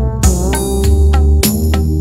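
Instrumental background music with a strong bass line, sustained pitched notes and drum hits.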